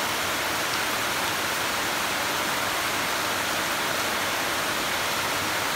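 Heavy monsoon rain pouring onto tropical foliage: a loud, steady, even hiss.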